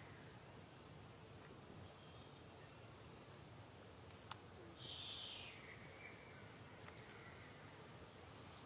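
Faint, steady, high-pitched drone of insects such as crickets, with two brief high calls that fall away in pitch, one about five seconds in and one at the end, and a single sharp click about four seconds in.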